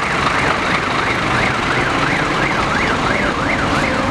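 A siren wailing in a fast up-and-down sweep, about two to three rises a second, over the low steady sound of an idling engine.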